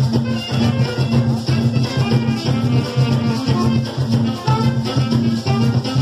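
Carimbó music played live by a band: drums keep a steady repeating beat under maracas and melody instruments.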